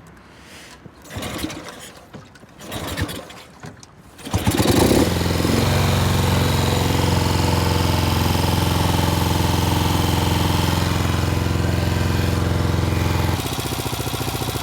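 Classic Norton motorcycle engine catching about four seconds in, revving once, then running steadily at a fast idle with the throttle held, and dropping to a lower, slower idle near the end.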